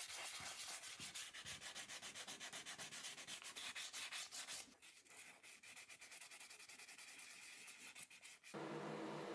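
Green abrasive scouring pad scrubbed by hand over wet cast-iron parts in quick back-and-forth strokes, lighter from about five seconds in. About a second before the end it cuts to a steady hiss with a low hum.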